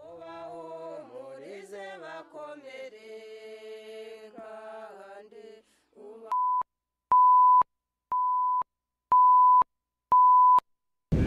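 A group of voices singing together, faint, for about the first six seconds. Then a steady single-pitch beep near 1 kHz sounds five times, each about half a second long, about once a second and loud: a reference tone of the kind laid between recorded news segments.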